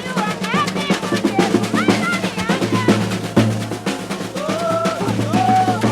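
Maracatu drumming: deep bass drums (alfaias) pounding under rolling snare drums, with voices calling out over the rhythm and one long sung note near the end.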